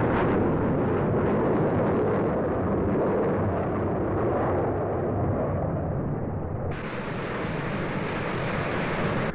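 Jet engine noise of English Electric Lightning fighters flying in formation, a steady rushing sound. About seven seconds in it changes to a quieter steady noise with a thin high-pitched whine.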